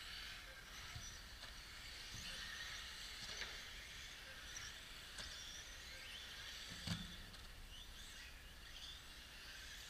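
Radio-controlled racing cars running on an off-road track: faint high motor whines that rise and fall as the cars accelerate and pass, over a steady hiss. A single thud about seven seconds in, as a car comes off a jump.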